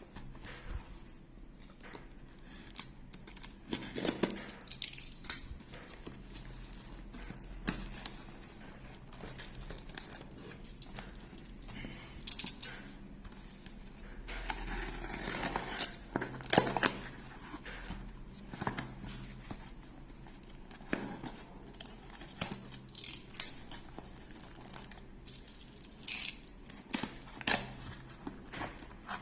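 Shipping box being cut and torn open: scattered scrapes and clicks, tearing and crinkling of packaging, with a longer stretch of tearing about halfway through.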